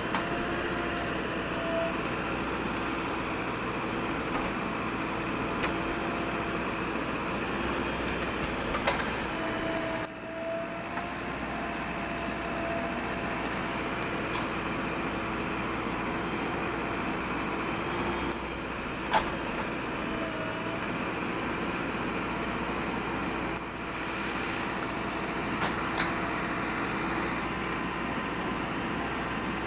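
JCB backhoe loader's diesel engine running steadily, with a few sharp metallic knocks from the working machine.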